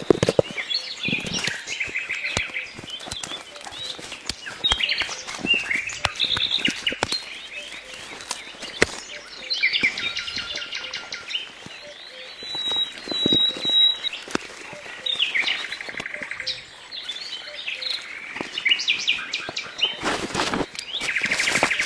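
Songbirds singing and chirping repeatedly, with scattered short clicks and knocks.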